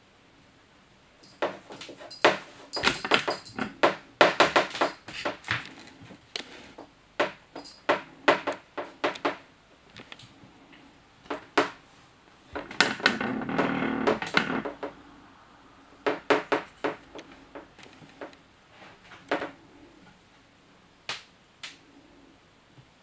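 A kitten playing with a plastic circular ball-track cat toy: irregular clicks and knocks of paws against hard plastic, coming in clusters. A little past the middle there are about two seconds of continuous rolling rattle.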